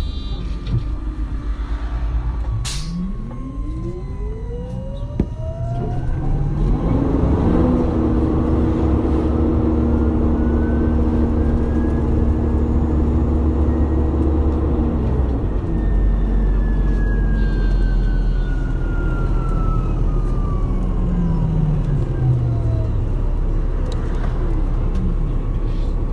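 MAN Lion's City hybrid bus pulling away: its electric drive whine rises steadily in pitch over about ten seconds, with a steady engine hum joining in partway, over a low rumble. Later the whine falls away again as the bus slows.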